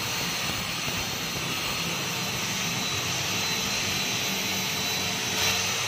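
Electric angle grinder fitted with a wire cup brush, running steadily and scrubbing across a natural stone floor with a constant whine and rushing hiss as it strips old paint stains off the stone.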